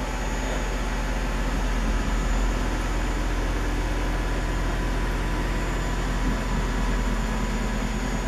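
Steady low mechanical hum with an even hiss over it, running without change.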